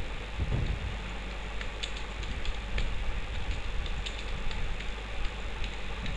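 Slow typing on a computer keyboard, a few scattered faint key clicks, over a steady low electrical hum.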